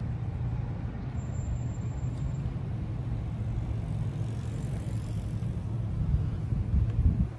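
Wind buffeting the microphone outdoors: an uneven low rumble that gusts harder near the end.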